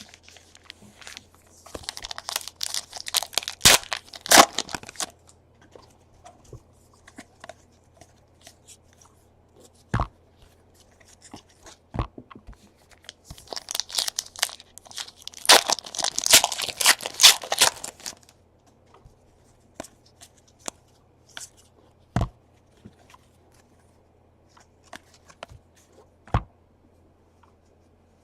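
Trading-card pack wrappers being torn open and crinkled, in two bursts about two seconds and fourteen seconds in, with a few single sharp taps between them. A faint steady low hum underneath.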